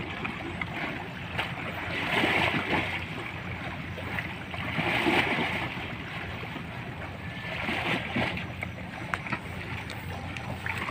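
Harbour water sloshing against a moored wooden outrigger boat, rising in washes about every three seconds, over a steady low hum.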